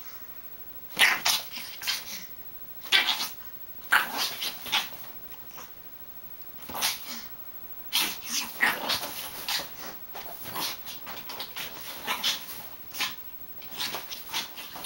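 A Japanese Chin dog playing rough with a pillow, making short, noisy vocal sounds and scuffling against the cushions in irregular bursts.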